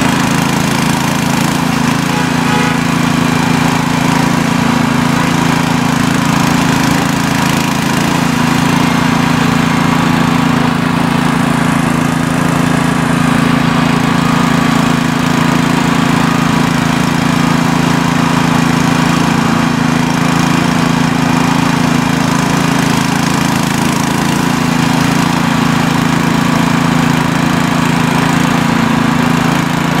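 Small engine running steadily at a constant speed, with a continuous low hum and no changes in pitch or level.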